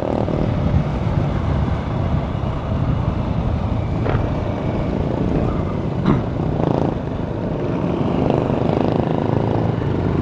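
Motorcycle engine running with wind rushing over the microphone as the bike is ridden, with a couple of brief clicks about four and six seconds in.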